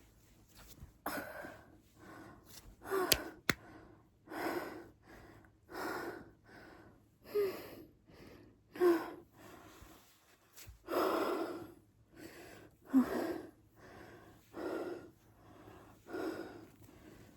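A woman's mouth and throat make a run of short, breathy bursts of air, one about every second and a half, some with a brief low pitch in them.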